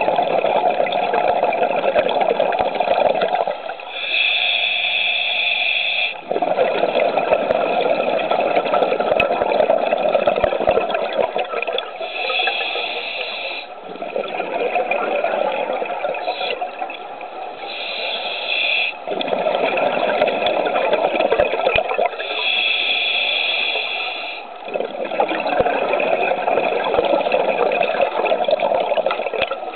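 Scuba diver breathing through a regulator underwater: a hissing inhale with a steady high tone lasting one to two seconds, then a longer rush of exhaled bubbles, the cycle repeating four times.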